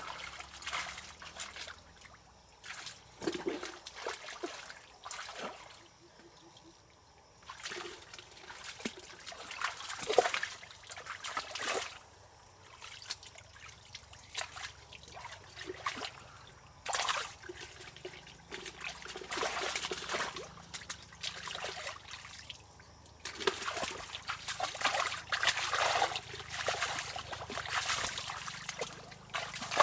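Water trickling and splashing in irregular bursts a second or two long, with quieter gaps between them and a few sharp knocks.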